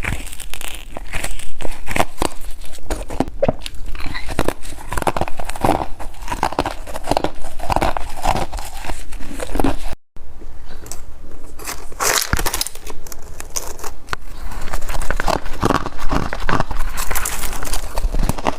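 Close-miked crunching of white snow ice being bitten and chewed: dense, irregular crunches and crackles. The sound drops out for an instant about halfway, then the crunching resumes.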